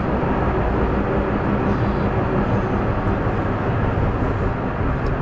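Hungerburg funicular cabin running along its track, heard from inside the cabin: a steady, dense low running noise with a faint hum underneath.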